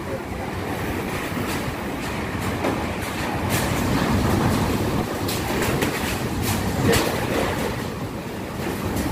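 Typhoon wind and rain rushing outside a window in a steady heavy rumble that swells about four seconds in. A few sharp knocks are scattered through it.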